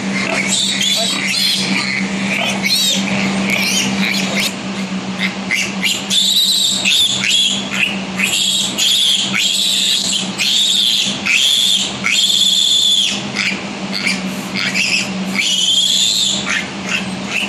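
A piglet squealing in a long series of shrill, repeated squeals while held up by its legs for castration, a distress cry of pain and restraint, loudest in the middle stretch. A steady low hum runs underneath.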